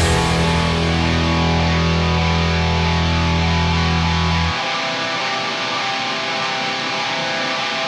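The band's song playing: guitar over a held low bass note. The bass note stops about halfway through, leaving the guitar on its own.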